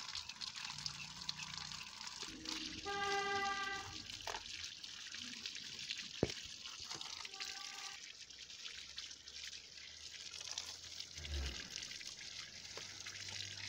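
A thin stream of water trickling and splashing over potatoes as they are rinsed by hand, with a few small knocks. A brief pitched sound comes in about three seconds in and again briefly near eight seconds.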